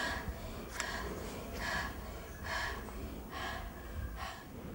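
A person breathing audibly in and out, a breath about every second, while a doctor listens to the chest with a stethoscope. A light click about a second in.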